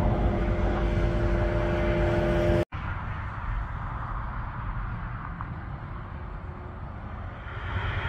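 Outdoor background: a steady low rumble with a constant hum, which cuts out abruptly about two and a half seconds in. It gives way to quieter, even, hissy outdoor noise.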